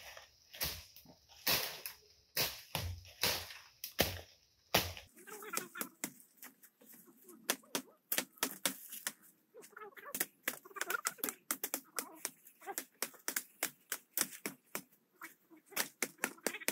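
A series of sharp knocks or taps, about one to two a second, then from about five seconds in quicker, irregular clicking.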